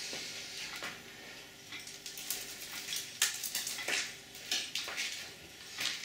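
Dry dirt being flung from a small glass bowl onto a tiled floor, scattering with a hiss and irregular light taps. A few sharper knocks stand out near the middle.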